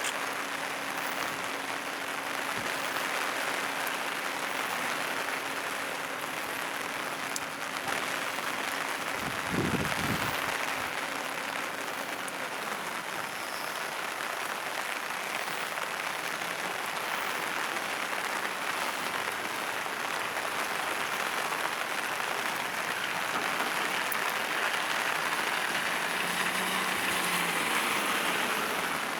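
Koki container wagons of a freight train rolling slowly past on the rails: a steady rushing of wheels on track, with a brief low rumble about ten seconds in.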